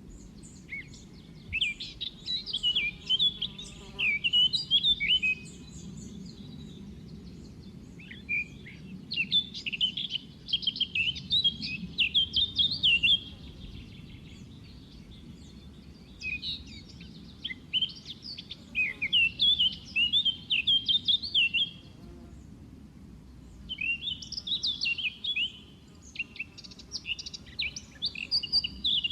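White-eye (pleci, Zosterops) singing: four phrases of quick, high twittering chirps, each lasting a few seconds with short pauses between, over a faint low background hum.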